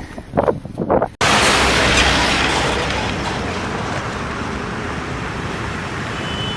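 Street traffic noise, a steady rushing hiss, after a few gusts of wind on the microphone that end in an abrupt cut about a second in.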